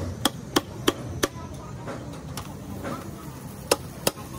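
Hammer blows ringing on the metal of a ZF truck gearbox being dismantled. There are four quick strikes about three a second, a pause, then two more near the end.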